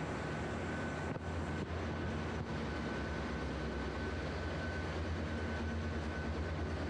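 Steady din of a ship's engine-room machinery: a continuous low hum with a thin, steady high whine above it.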